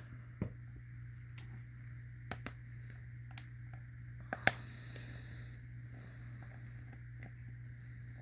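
Scattered small clicks and taps as an Israeli 4A1 gas mask's plastic parts are worked on with a Phillips screwdriver, the sharpest about four and a half seconds in, over a steady low hum.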